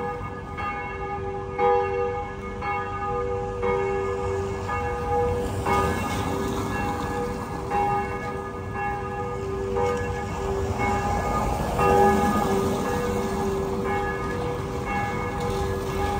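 Church bells ringing, struck about once a second, several tones overlapping and ringing on between strikes.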